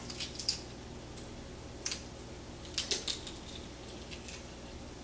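Hard-boiled egg being peeled by hand: faint scattered crackles and small clicks as bits of shell are picked off, in a few short clusters.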